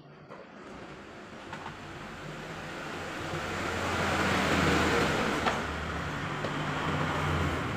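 A motor vehicle engine grows louder over about four seconds and then holds steady, with a light click or two.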